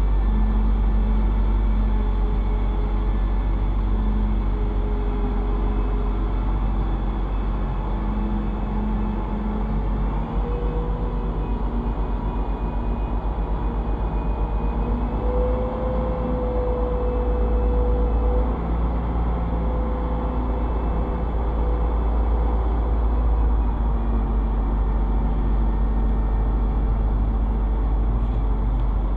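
Crane's engine running under load while hoisting, a steady low rumble with tones that drift slightly up and down in pitch.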